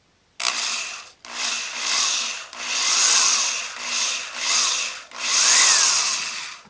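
DeWalt DW100 power drill boring through the metal terminal legs of a bridge rectifier, opening the little divots into holes. It runs in about six short bursts, its pitch rising and falling with each.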